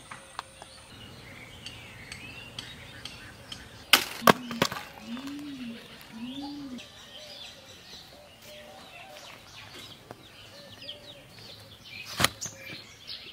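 Birds chirping and calling, with a quick run of three sharp knocks about 4 seconds in, two short low calls just after, and a single sharp knock near the end.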